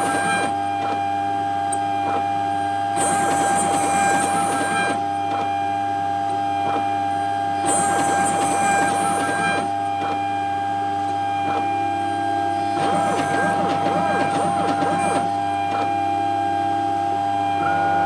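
CNC machine milling aluminium: a steady spindle whine over a low hum, with a harsher, higher cutting noise coming and going in passes of a second or two, several times.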